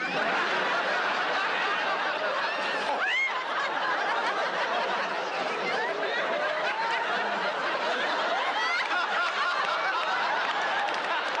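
Studio audience laughing hard and steadily at a punchline, many voices at once, with one voice rising above the rest about three seconds in.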